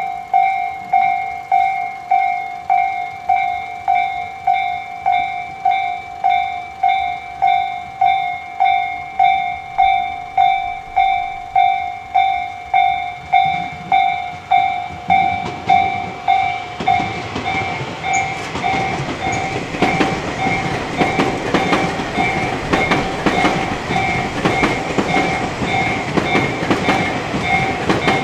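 Level-crossing warning bell ringing its electronic "kan-kan" at a steady pace of a little under two strokes a second. From about halfway through, a Tobu electric train passes over the crossing, and its running noise and wheel clatter over the rail joints grow loud and partly cover the bell.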